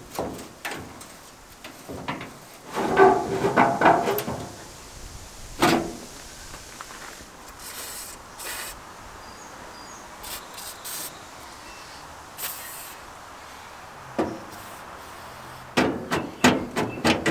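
A seized car door hinge being worked back and forth, creaking and squealing, with a click near six seconds and a fast run of creaks near the end; the hinge is still tight. In the middle come a few short hissing sprays, penetrating oil going onto the hinge.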